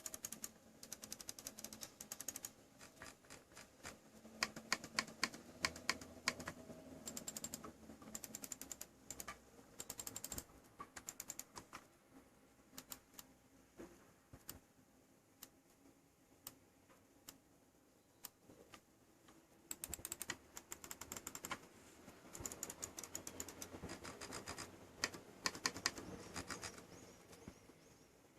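Logitech G402 gaming mouse buttons clicked over and over, in fast runs of many clicks a second, with sparser single clicks in the middle stretch.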